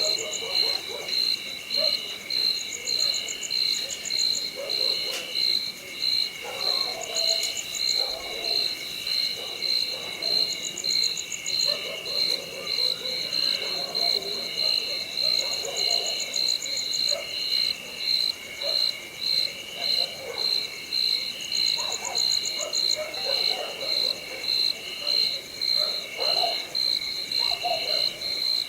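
Nightfall chorus of insects and frogs. Crickets or similar insects keep up a steady high chirping that pulses about twice a second, with short higher trills every few seconds. Below them, frogs call irregularly.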